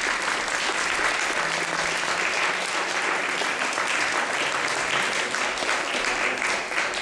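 Audience applauding: steady, dense clapping from a hall full of people.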